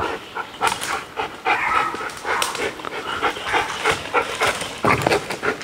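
Belgian Malinois giving short high whines, among scattered sharp clicks and scrapes.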